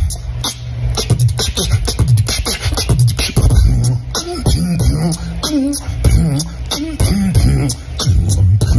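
Human beatbox: a steady, tight hip-hop groove of deep kick sounds and fast, crisp hi-hat-like clicks made with the mouth. From about four seconds in, a hummed, wavering pitched line joins the beat.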